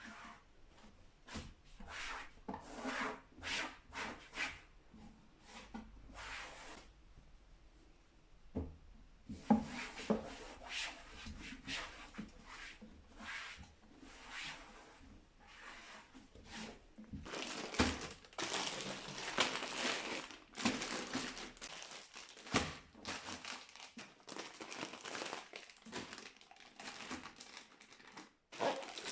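Crinkly material, such as packaging, rustling and crinkling as it is handled, in irregular short rustles with a brief lull about seven to nine seconds in.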